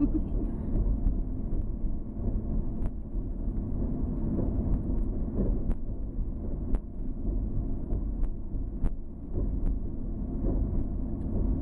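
A car's engine and tyres give a low, steady rumble, heard from inside the cabin. Light clicks and knocks come now and then.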